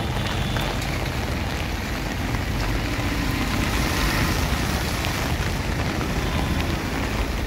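Heavy rain falling steadily, a dense even hiss with a steady low rumble underneath.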